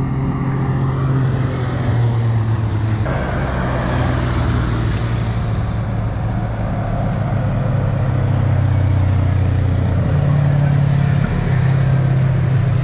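Several side-by-side UTVs driving past on a paved road: their engines run at steady pitches that shift now and then as different machines go by, over tyre and road noise.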